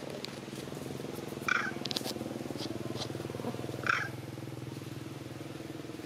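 A small engine running steadily nearby. Two short, high-pitched calls stand out, one about a second and a half in and one near four seconds, with a few faint clicks between them.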